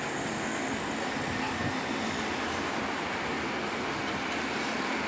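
Steady background noise with no distinct events.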